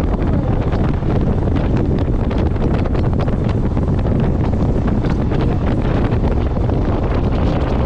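Steady, loud wind buffeting the microphone on a moving motorcycle, a dense low rumble that covers any engine sound.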